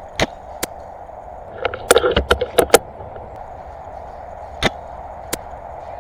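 Airsoft guns firing: a couple of single sharp cracks, then a quick volley of about nine shots around two seconds in, and two more single shots near the end.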